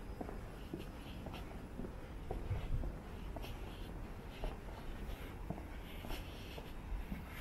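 Footsteps of a person walking on pavement: soft shoe scuffs about two a second over a low steady rumble.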